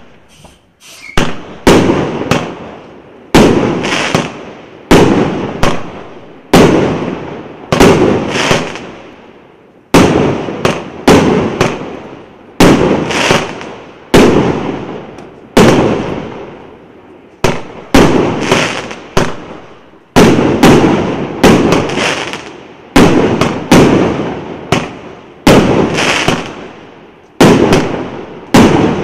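A 142-shot, 1.2-inch consumer firework cake firing its aerial shells one after another. Sharp bangs come about every one and a half seconds, some in quick pairs, and each trails off in a long echo.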